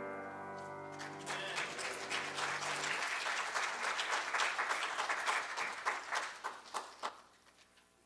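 The last chord of a piano piece rings and dies away while the congregation applauds; the clapping fades out about seven seconds in.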